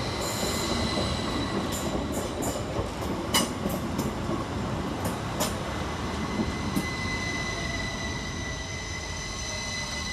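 Class 333 electric multiple unit rounding the curve into the station, its wheels squealing in a steady high tone over a rolling rumble, with a handful of sharp clicks from the wheels on the track between about two and seven seconds in.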